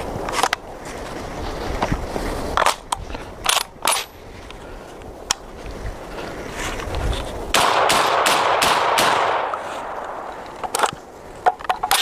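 Airsoft guns firing, with scattered single shots and short bursts and a denser run of shots about halfway through.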